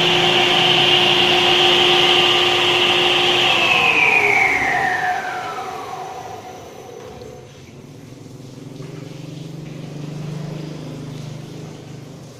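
Granite-cutting machine's motor and blade spinning freely with a steady whine, then switched off and winding down: the whine falls steadily in pitch over about four seconds and fades to a faint low hum.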